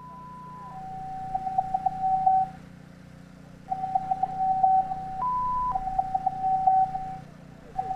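Electronic sine tones from an audio oscillator driven by a television's centre scan line: a steady higher tone drops to a lower one just under a second in. The lower tone flutters and stutters, breaks off twice, and jumps briefly back to the higher pitch about five seconds in, over a faint steady low hum.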